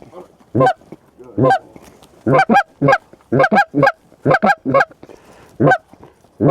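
About a dozen loud, close goose honks and clucks blown on a short-reed goose call, in quick uneven runs of singles, doubles and triples. It is the calling hunters use to turn Canada geese flying past toward the decoys.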